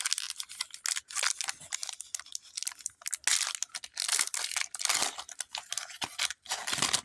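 Foil wrapper of a Pokémon trading-card booster pack crinkling and tearing as it is handled and pulled open by hand, in a string of short, irregular crackles.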